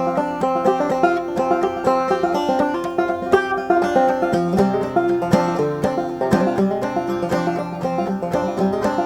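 Clawhammer banjo playing a tune: a quick, steady stream of plucked notes.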